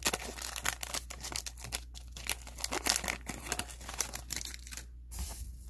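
Paper wrapper of a 1992-93 O-Pee-Chee hockey card pack being torn open and peeled back by hand: a dense run of crinkling and tearing crackles, with a brief pause near the end.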